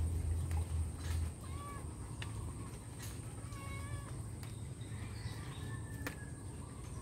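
An animal calling: three short, high calls about two seconds apart, over a low steady rumble.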